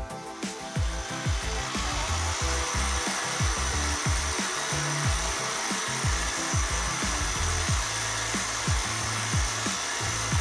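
Craftsman 1/3 HP belt/disc sander running, its 6-inch sanding disc grinding the end of a walnut bent-lamination hook in a steady gritty hiss. Background music with a steady beat plays underneath.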